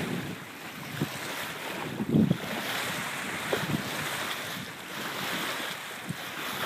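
Wind buffeting the microphone over the rush and splash of water along the hull of a sailboat under sail, with a stronger gust about two seconds in.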